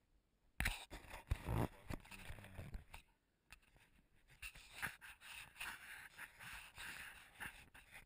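Handling noise close to the microphone: a sharp knock about half a second in, a couple of seconds of knocking and scraping, a brief lull, then steady rustling and scraping with scattered clicks.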